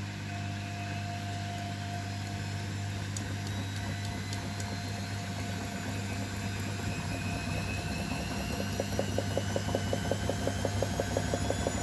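Beko WML 51211 EL+ washing machine's drum motor speeding up, a whine rising slowly in pitch over a steady low hum, as the drum accelerates after draining. A fast, even pulsing beat sets in about two-thirds of the way through as the drum spins faster.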